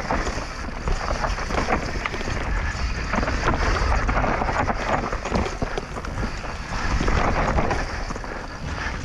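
Mountain bike descending a dirt trail: the tyres rolling on the loose ground and the bike rattling in quick clicks over the bumps, with wind buffeting the microphone.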